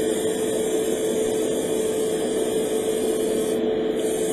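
Airbrush spraying primer with a steady hiss over a constant motor hum; the hiss drops out briefly about three and a half seconds in, as the trigger is let off. The airbrush is not making very good noises, which the owner puts down to its needing a thorough clean.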